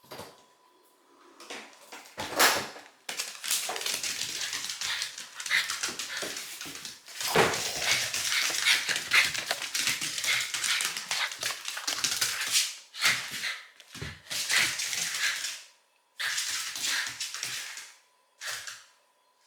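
Small Shiba Inu eating its meal: dense, fast crunching and clicking of chewing with a few short pauses, and one sharp loud crack early on.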